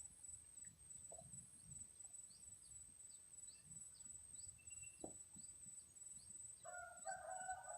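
A distant rooster crowing, its call starting about a second before the end, over a faint steady high-pitched whine and scattered faint chirps.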